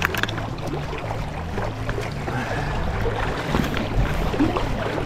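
River water rushing and lapping close to the microphone, with wind buffeting the microphone as a steady low rumble. A few light clicks come right at the start.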